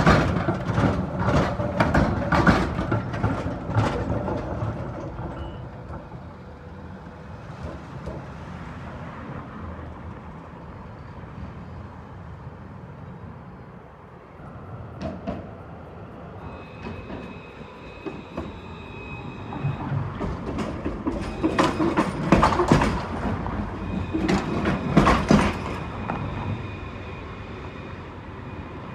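A Melbourne A-class tram rolling away over rail joints and points, its wheels clicking rapidly for the first few seconds, then a low street hum. Later a second run of wheel clicks over the track, with thin steady high tones, as a C-class Citadis tram approaches.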